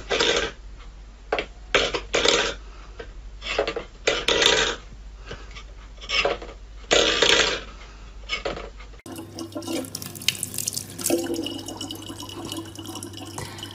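A steel pet bowl knocked and scraped over a wooden floor by a cat's paw: a string of short clattering scrapes with pauses between them. About nine seconds in, this gives way to a thin faucet stream running steadily into a plastic bottle, with a low hum.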